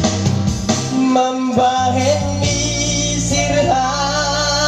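A singer singing a Batak-language song over an instrumental backing track with a steady bass line, holding long notes that bend slightly in pitch.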